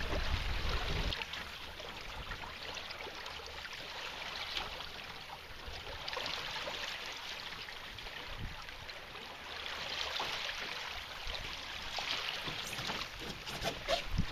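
Water swishing and lapping against a sailing canoe's hull as it moves through choppy water, a hiss that swells and fades every few seconds. Low wind buffeting on the microphone for about the first second.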